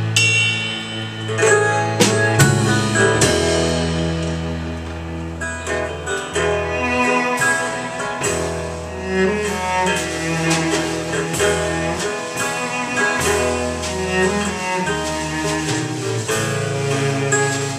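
Live band playing an instrumental passage between verses, with no singing: held, bowed low string notes over strummed and plucked guitar.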